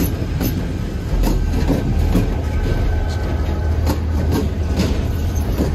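Freight train's diesel locomotives passing close by: a steady low engine and rail rumble with repeated sharp clacks of wheels striking rail joints.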